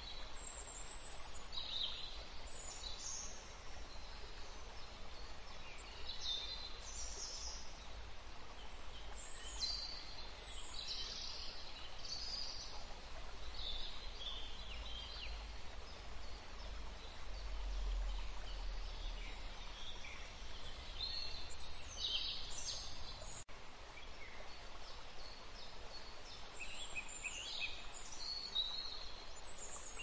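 Wild birds calling and singing outdoors: short high chirps and trills every second or two, from more than one bird, over a steady hiss and a low rumble.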